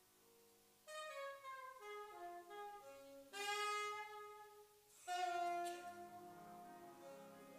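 Saxophone playing a slow melodic line over grand piano accompaniment. After a soft held chord, the saxophone comes in about a second in, with a loud sustained note in the middle and another near the end.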